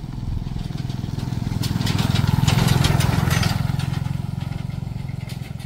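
Motorbike engine running, growing louder to a peak about halfway through and then fading.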